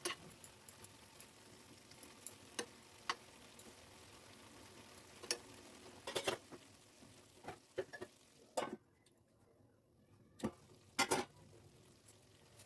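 Food being stirred in a pan with a cooking utensil: irregular clinks and knocks against the pan over a faint frying sizzle. The sizzle drops away briefly about nine seconds in.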